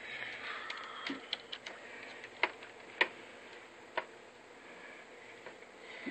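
Scattered sharp plastic clicks and taps from a Dell Studio 1737 laptop's keyboard and trim as they are pressed and snapped into place by hand, the loudest few clicks near the middle.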